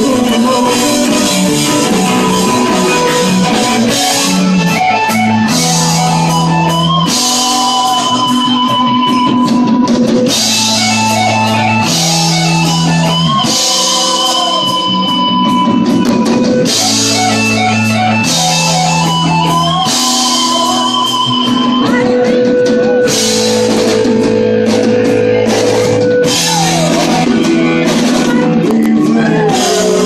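Live rock-and-roll band playing loudly: strummed acoustic guitar and electric guitar over drums with cymbals, with singing.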